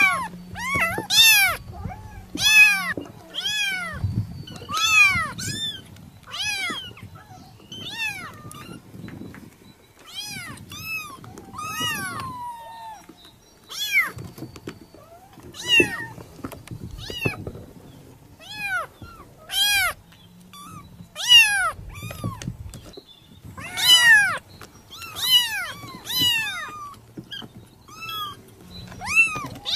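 Domestic cat meowing over and over: many short meows that rise and fall in pitch, some coming in quick runs of two or three.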